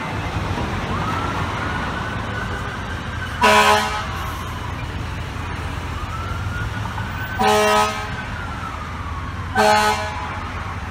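Fire engine siren wailing, slowly rising and falling, over a steady low engine rumble. Three short horn blasts cut in about a third of the way in, about two thirds in, and near the end.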